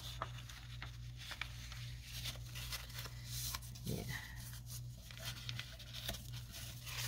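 Faint rustling and soft taps of an old book page being handled and laid flat on a sheet of cardstock, over a steady low hum. A person gives a brief murmur about four seconds in.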